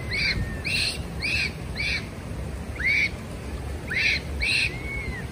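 Japanese macaque giving short, high coo calls, about nine in quick, uneven succession, each rising and falling in pitch. The last is a longer call that glides down near the end. A low steady rumble runs underneath.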